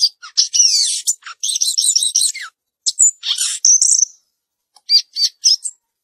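Caged samyong garugiwa songbird singing: quick, high runs of chirps and whistled notes in phrases with short pauses. Near the end come four separate clear notes, then the song stops abruptly.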